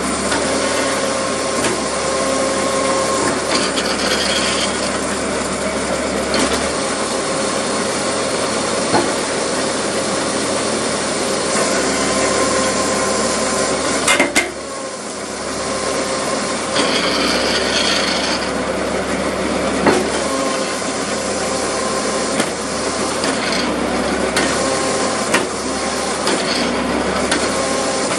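Homemade tractor-PTO-driven hydraulic wood splitter running under load: a steady mechanical drone with a constant hum from the pump and drive, while oak logs are split on the wedge with rubbing, creaking wood and a few sharp cracks and clicks. The level dips briefly about halfway through.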